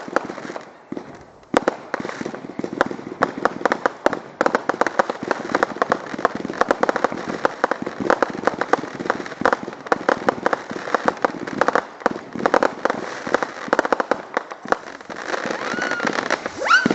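Consumer fireworks crackling: a dense, rapid run of pops and crackles that starts about a second and a half in and keeps going.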